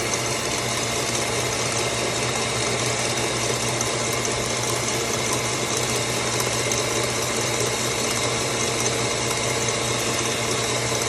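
Electric mixer running steadily on high, whipping instant espresso, sugar and warm water into a froth.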